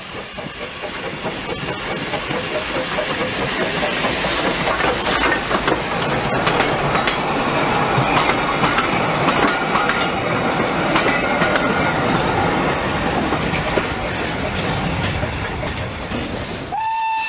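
Steam locomotive built in 1875 running past with its wooden carriage: steam hiss and wheels clicking over the rail joints, growing louder to a peak midway and fading as it draws away. Near the end a steam whistle starts, one steady note.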